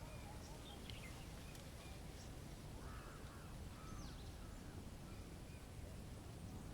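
Faint outdoor ambience with a few bird calls. Two short arching calls come about three and four seconds in, with scattered brief high chirps, over steady low background noise.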